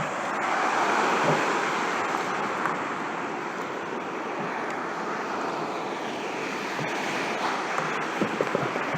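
Sea water washing in a steady hiss with wind on the microphone, swelling about a second in and again later.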